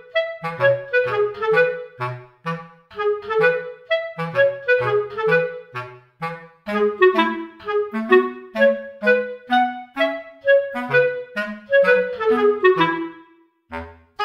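Background music: a clarinet playing a melody of short, separate notes over a bass line.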